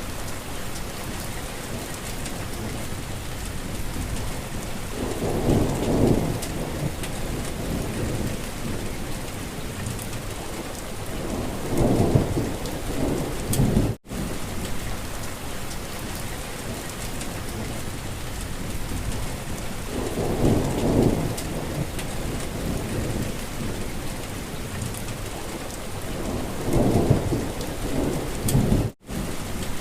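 Steady rain falling, with four low rolls of thunder spaced roughly seven seconds apart. The sound cuts out for a split second twice, once about halfway through and once near the end.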